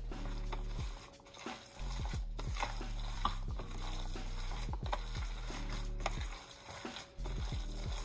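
Gloved hands mixing chopped raw chicken, onions and spices in a glass baking dish: soft squishing, plastic-glove rustling and small taps on the glass, over a steady low hum that drops out twice.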